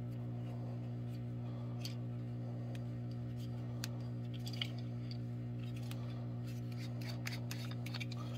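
Steady low electrical hum in a workshop, with a few faint clicks and ticks as the plastic CO2 discharger and its brass adapter are handled and screwed together.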